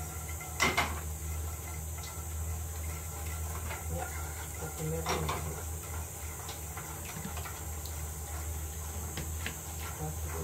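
Metal spoon stirring sauce in a frying pan, with light scrapes and ticks against the pan and one sharp clink about a second in, over a steady low hum.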